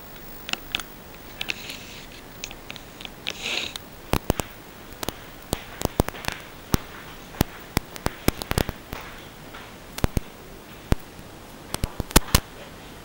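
Irregular sharp clicks and taps at close range, sometimes several a second, with brief rustling in the first few seconds. The quadcopter's motors are not running.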